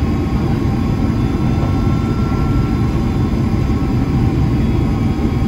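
Inside the cabin of a Boeing 767-300ER descending on approach: the turbofan engines and airflow make a steady low rumble with a few faint steady whine tones above it.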